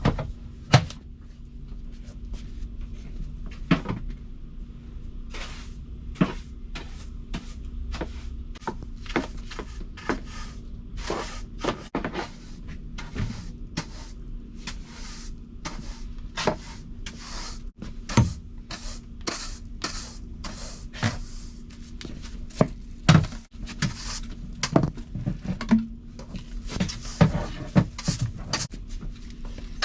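Irregular clicks, knocks and light clatter of things being handled, like cupboard doors and objects being moved, over a steady low hum in a small room.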